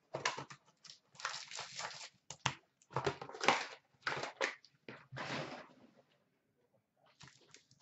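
A 2015-16 Upper Deck Contours hockey card box being opened, with a run of cardboard rustling, tearing and crinkling as the foil packs are pulled out. The noises stop about six seconds in, with a few faint handling sounds near the end.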